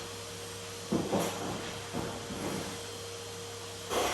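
A few short knocks and clunks, the strongest pair near the end, over a steady low hum.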